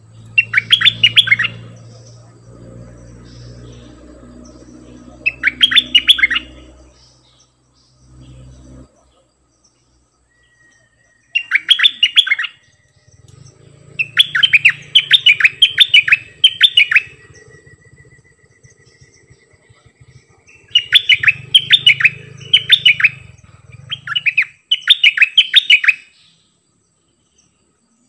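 Stripe-throated bulbul (decoy bird) singing bursts of quick, sharp chattering notes, in clusters separated by pauses of a few seconds, with longer runs of several bursts in a row in the second half.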